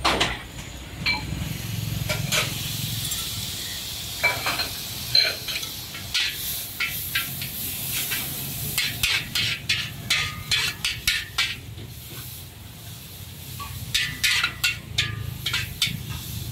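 Char koay teow (flat rice noodles with bean sprouts) sizzling in a wok, with a metal spatula scraping and clanking against the wok in quick runs of strikes as it is stir-fried.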